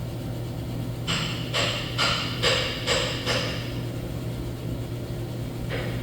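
A series of about five short scraping strokes, one every half second or so, from about a second in, over a steady low machine hum.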